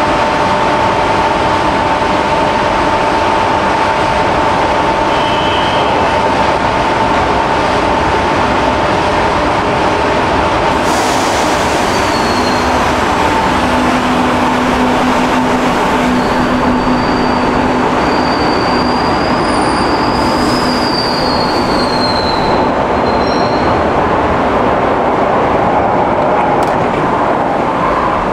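Metro train pulling into an underground station with a steady rumble, its wheels squealing high and wavering for several seconds as it brakes, over a steady electrical whine.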